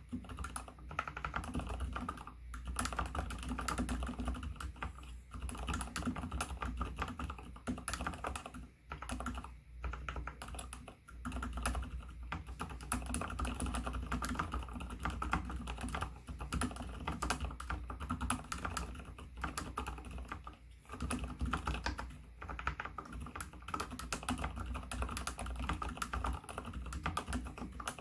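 Fast, continuous typing on a mechanical keyboard with spray-lubricated Gateron Silent Brown switches: muted, dampened keystrokes, with the typist's fingernails clicking on the keycaps. There are a few brief pauses in the stream of keystrokes.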